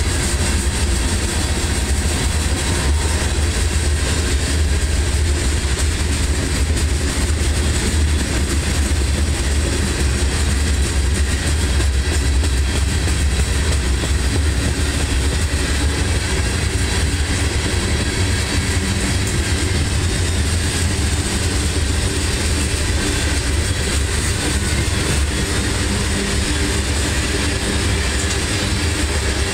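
Loaded covered hopper cars of a freight train rolling past, a steady, unbroken rumble of steel wheels on the rails.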